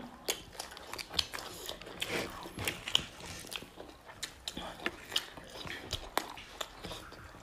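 Close-miked mouth sounds of eating: wet chewing and irregular lip smacks and clicks as rice and chicken curry are eaten by hand.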